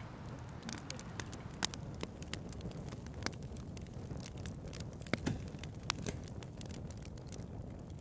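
Faint crackling: scattered sharp pops and clicks over a low, steady hiss.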